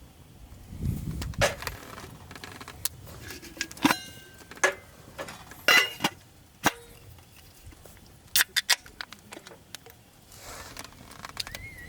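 Metal camp cookware and utensils being handled, clinking and knocking irregularly, with a few sharp ringing clinks.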